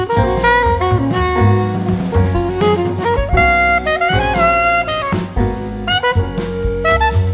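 Background music: a melody moving over a steady drum beat.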